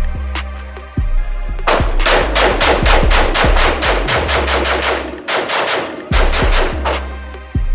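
Rapid semi-automatic fire from a 7.5-inch-barrelled AR-15 pistol shooting 5.56 NATO/.223 Remington: a single shot, then a long quick string of shots, a short pause, and a second shorter string. Hip hop music with a heavy bass plays underneath.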